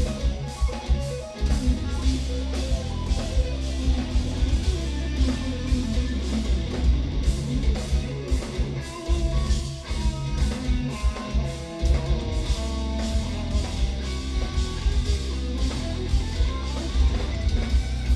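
Live progressive metal band playing: extended-range electric guitars over heavy bass and drum kit, with dense low-end riffing and frequent drum hits.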